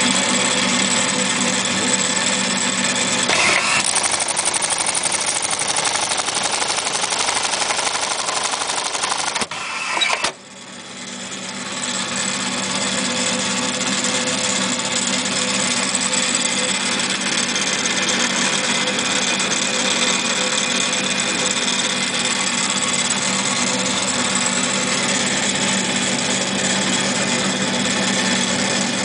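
Reece 101 keyhole buttonhole sewing machine running its stitching cycle with a steady mechanical clatter and motor hum. About ten seconds in there is a sharp clunk, and then the machine runs steadily again.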